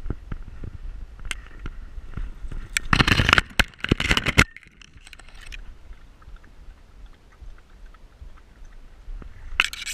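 Leaves and grass stems rustling and scraping against a dog-mounted action camera as the dog pushes through undergrowth. The loudest stretch lasts about a second and a half a few seconds in, with another short brush near the end and light knocks from the dog's strides at the start.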